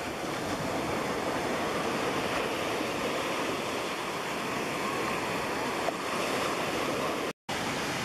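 Ocean waves breaking on a sandy beach in a steady rush of surf. The sound cuts out for a split second about seven seconds in.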